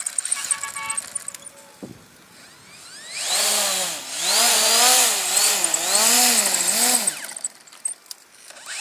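RC plane's electric brushless motor and propeller, driven by an Emax BLHeli 40A ESC set to two-way reverse-thrust mode. It spools up about three seconds in, then revs up and down repeatedly, about once a second, as the throttle is worked, and winds down near the end.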